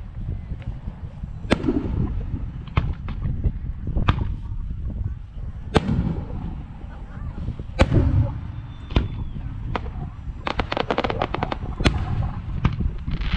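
Aerial firework shells bursting, a sharp bang every second or two, with a quick run of crackles about three quarters of the way through.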